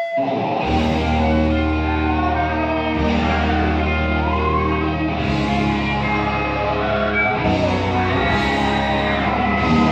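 Live heavy metal band playing: distorted electric guitars over bass and drums. A single held note gives way to the full band about half a second in, and there is a guitar bend about four seconds in.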